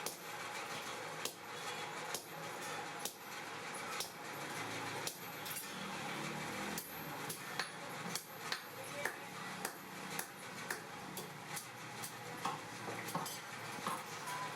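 Blacksmith's hammer striking steel on an anvil: an irregular run of sharp metallic blows, one or two a second, some ringing, over a steady rushing noise.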